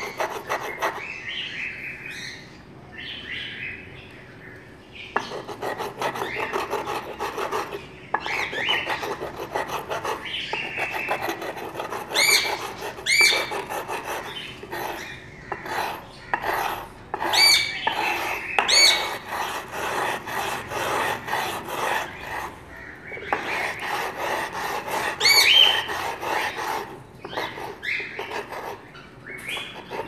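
A clove rubbed back and forth on a wet sharpening stone in a bowl of water, ground down into the water: rhythmic gritty scraping strokes that pause briefly near the start. A few short high chirps stand out over the scraping.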